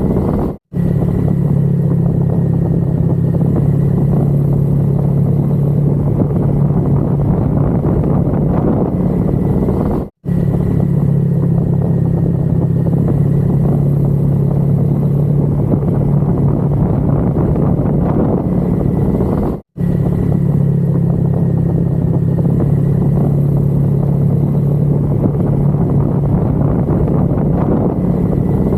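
Steady engine and riding noise of a motorcycle cruising at an even speed. The sound cuts out completely for an instant about every nine and a half seconds.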